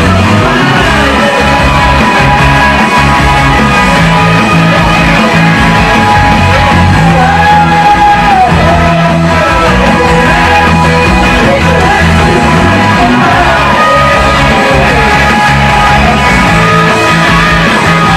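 Rock band playing live and loud: a male singer singing over electric guitars, bass guitar and a drum kit.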